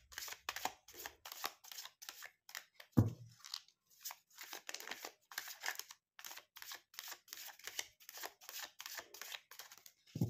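A deck of tarot cards being shuffled by hand: a rapid string of short papery flicks, several a second, with one low thud about three seconds in.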